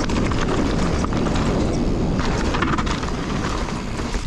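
Wind buffeting an action camera's microphone as a mountain bike rolls fast down a dirt trail, with low tyre rumble and sharp knocks and rattles from the bike over bumps.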